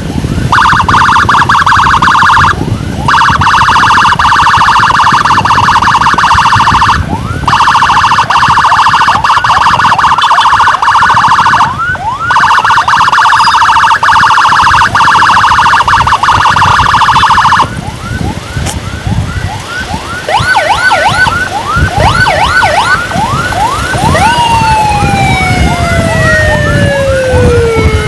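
Emergency escort siren sounding loud and close: a fast warble broken by brief pauses every few seconds, switching at about two-thirds of the way to rapid short rising chirps, then to one long tone sliding down in pitch near the end. Engine and wind rumble run underneath.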